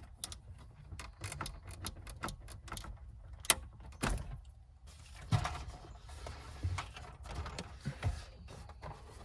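Irregular clicks, rattles and knocks of hands working plastic dash parts and wiring connectors behind a truck radio, with one sharp click about three and a half seconds in.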